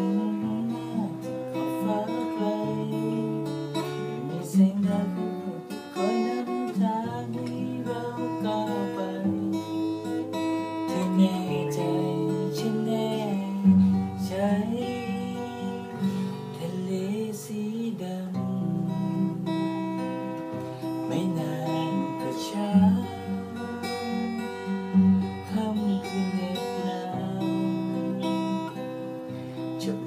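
Acoustic guitar strummed in steady chords, with a man singing along in a small tiled bathroom.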